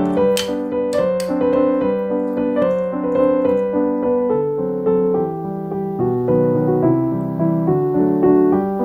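Background piano music: a melody of held notes changing about every half second.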